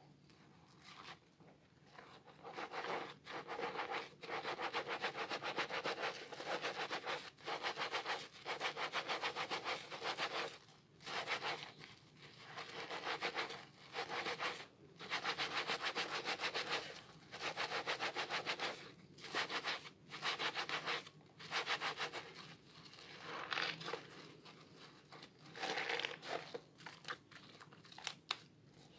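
Hands squeezing and kneading a soaked bar of soap and a sponge in thick lather. The wet foam crackles in repeated bursts of about a second each, with short pauses between squeezes.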